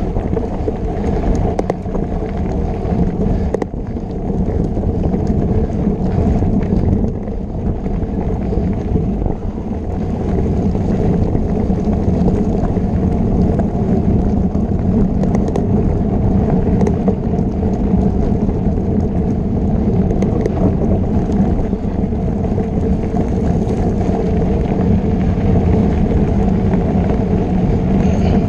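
Mountain bike riding over a dirt trail, heard from a camera riding along: a steady low rumble of knobby tyres, trail vibration and wind on the microphone, a little louder from about ten seconds in.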